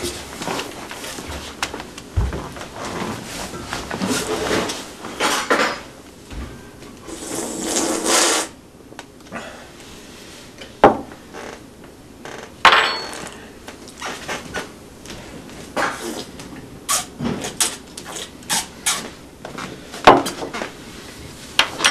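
Breakfast-table handling noises: a run of knocks and clatters of a bowl, cup, cereal box and milk carton set down and moved on a wooden table, with a longer rustle about eight seconds in.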